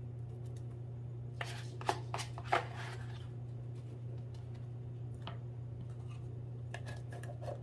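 A fork scraping and tapping whipped topping out of a plastic tub into a mixing bowl: a few short scrapes and clicks, the loudest about two seconds in and a few more near the end, over a steady low hum.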